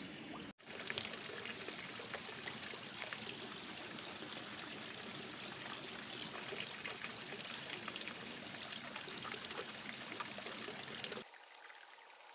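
Stream water trickling and flowing steadily. It drops to a quieter level about eleven seconds in.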